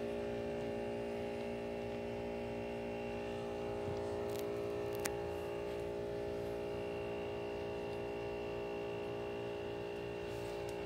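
Steady machine hum holding several fixed pitches, with a faint click about five seconds in.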